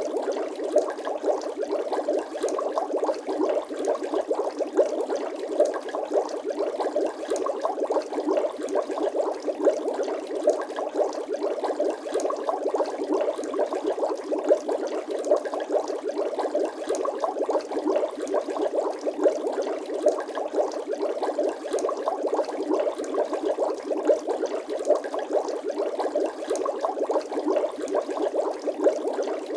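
Bubbling water sound effect: a steady, dense stream of small bubble pops and gurgles with no deep low end, unchanging throughout.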